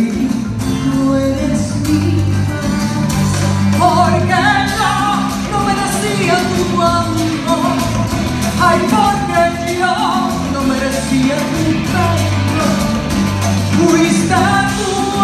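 A woman singing a Spanish-language song live into a microphone over instrumental accompaniment, with long held, bending vocal lines that swell several times over a steady bass.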